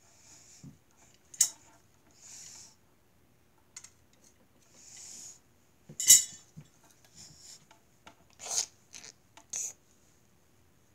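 Handling of a hard object up close: short scraping rubs and a few sharp clicks and clinks, the loudest click about six seconds in.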